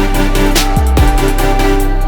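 Electronic dance music with a steady beat: deep, falling bass-drum hits under held synth notes and sharp hi-hat strokes.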